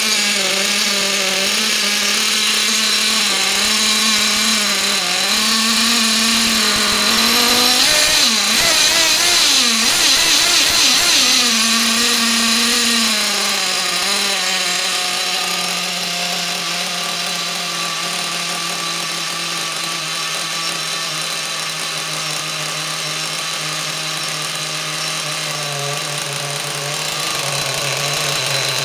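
Nitro engine of a Losi LST radio-controlled monster truck, fitted with a tuned exhaust pipe, idling fast with a slightly wavering pitch. About eight seconds in it is revved up and down several times, then it drops back to a lower, steady idle.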